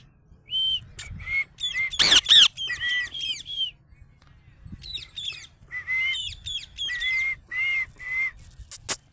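A pet parrot calling in bursts of short, quick whistled chirps, with brief pauses between the bursts and a run of repeated clear notes near the end.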